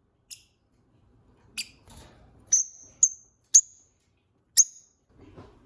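Peach-faced lovebird giving short, sharp, high-pitched chirps, six in about four and a half seconds.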